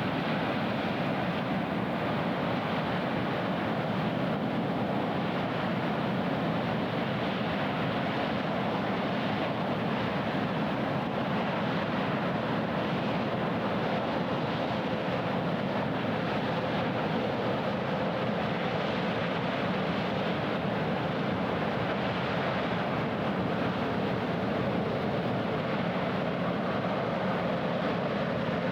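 Steady drone of a passing ship's engine over wind and water noise, holding an even level throughout.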